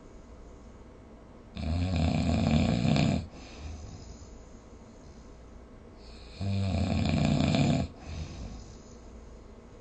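A person snoring: two loud snores about five seconds apart, each lasting about a second and a half.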